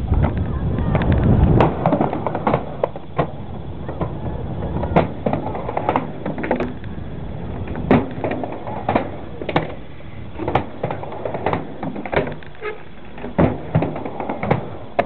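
Skateboard dropping in and rolling down a quarter-pipe ramp, with a loud rumble of the wheels over the first couple of seconds, then rolling on across pavement. Sharp clacks of skateboards striking the ground are scattered throughout.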